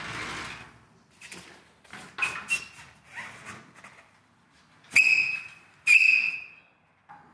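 Handling noise from a person climbing onto an aircraft wing resting on a padded stand. Light knocks and short squeaks come first, then two sharp, high-pitched squeaks about five and six seconds in, each lasting under a second.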